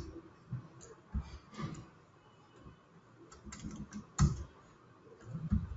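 Computer keyboard typing: irregular keystrokes with pauses between them, a few presses louder than the rest.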